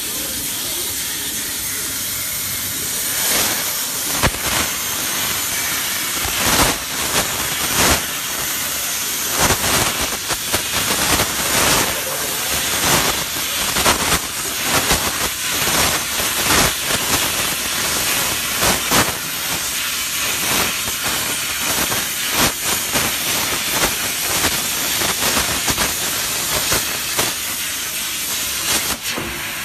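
CNC plasma cutter's torch (100 A plasma source) cutting sheet metal: a loud, steady hiss of the plasma arc and air jet, full of irregular crackles, that cuts off near the end.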